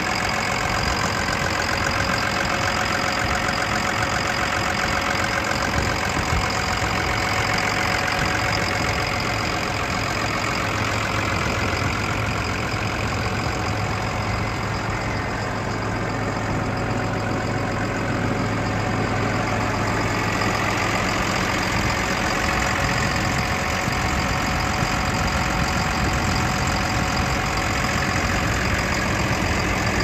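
CAT Challenger CH45 tractor's diesel engine idling steadily, heard up close at the open engine compartment.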